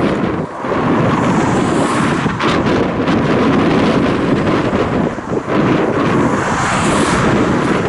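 Wind buffeting the camera microphone, a loud, uneven rushing noise, with road traffic passing.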